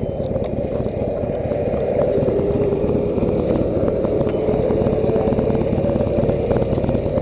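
Harley-Davidson V-twin with a short exhaust idling steadily, a deep, fast-pulsing rumble.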